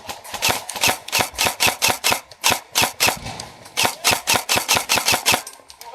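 Airsoft guns firing a rapid, uneven string of sharp shots, several a second, that stops about five and a half seconds in.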